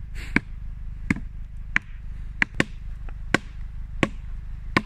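A hammer striking something hard, eight sharp blows about one every 0.7 s, over a steady low rumble.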